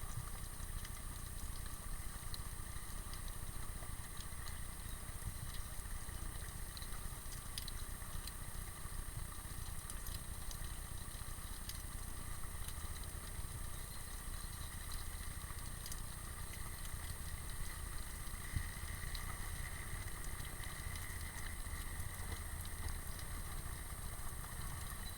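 Underwater ambience picked up by an action camera, a steady low rumble with faint steady high tones and scattered faint clicks.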